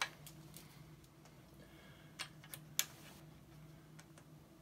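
Faint clicks and taps of a part being fitted by hand onto a washer's clutch assembly, a few sharper clicks around the middle, over a steady low hum.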